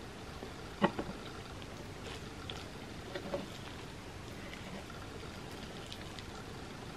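Close-miked eating sounds: soft chewing and mouth noises, with a few sharp clicks of a metal spoon scraping a skillet of gooey cookie, the sharpest about a second in and more around three seconds.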